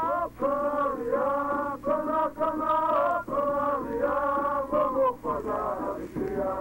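Male voices singing a folk song in long held notes with short breaks between phrases, from a 1938 field recording with a steady low hum beneath.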